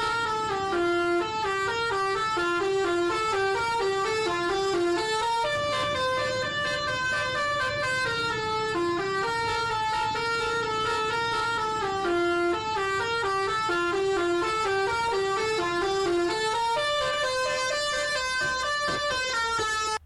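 Basuri telolet bus horn playing a melody of short, quick stepped notes, the tune going round twice.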